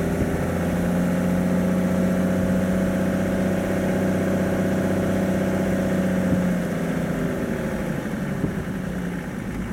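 Vehicle engine running steadily at low speed on a dirt track, with a noise of tyres and road underneath; the engine note drops a little near the end.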